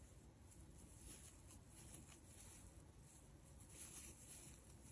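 Near silence: faint room tone with a few soft rustles.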